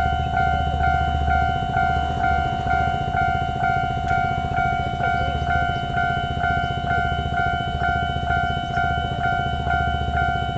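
Taiwan Railways level-crossing warning bell ringing continuously: an electronic two-tone ding repeating a little over twice a second. A steady low rumble runs underneath.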